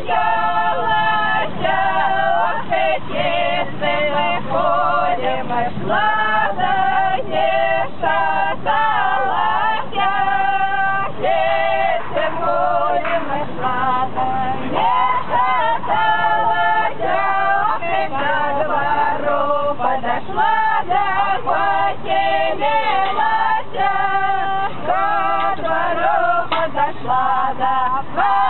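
A group of men and women singing together in a string of held notes, without pause.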